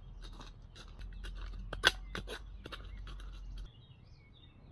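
Hands digging in loose, stony rubble soil: stones and grit crunching, scraping and clicking against each other, with one sharp clack of stone on stone about two seconds in. The clicking stops a little before the end.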